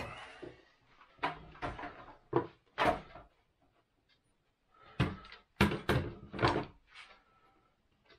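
A series of irregular sharp wooden knocks and clacks, about nine in all in two clusters, as the scrap-wood box parts are fitted and tacked together with a staple gun.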